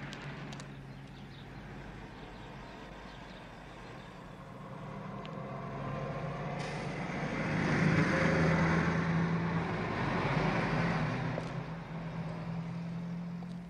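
Cars of a motorcade driving up and past, with a steady low engine hum and road noise that grow louder about halfway through and stay loud near the end.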